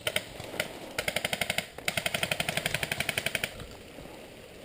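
Airsoft gun firing on full auto, about fifteen shots a second: a few single shots, then a short burst about a second in and a longer burst of about a second and a half.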